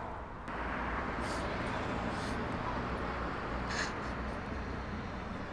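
Steady low hum of city traffic, with three faint, short hissy sounds.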